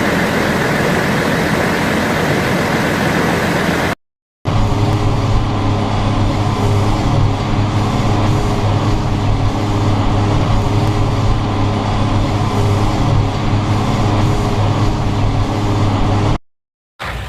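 John Deere 8960 four-wheel-drive tractor's diesel engine running steadily. It is a rougher, noisier sound for the first few seconds, then, after a brief break, a steady low engine hum.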